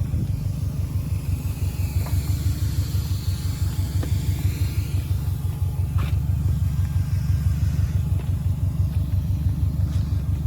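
A BMW E46's engine running at a steady idle, with an even low pulsing beat.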